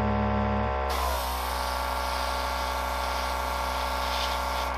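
Clear-coat paint spraying onto a plastic model car body: a steady hiss that starts about a second in and cuts off near the end, over a constant electric hum.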